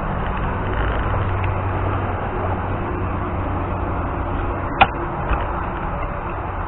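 Riding noise from a scooter: wind rushing over a helmet microphone over a steady low drone, with a sharp click about five seconds in.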